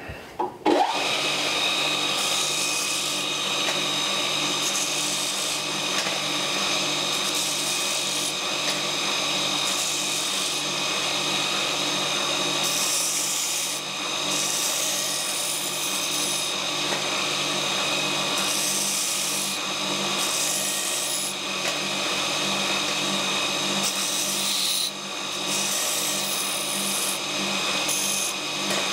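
A large three-phase belt grinder starts about a second in and runs steadily. A forged steel knife blank is pressed against the abrasive belt in repeated short passes, so a hissing grind comes and goes over the motor's hum. This grinds a small radius on the cut ends and takes off burrs and sharp tags.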